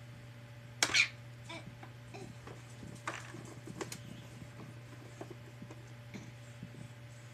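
Short, sharp knocks and clicks of a baby handling a hard plastic toy, the loudest about a second in and several fainter ones after, over a steady low hum.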